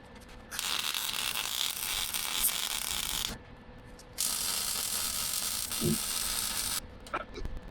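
Wire-feed welder arc crackling and hissing in two runs of about two and a half seconds each, stopping and restarting between short welds on the excavator bucket, played sped up.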